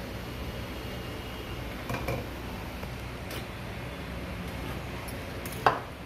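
Hot air rework station blowing steadily over a laptop motherboard to desolder a faulty power IC, with a few light metallic clicks about two seconds in and one sharp metal click near the end.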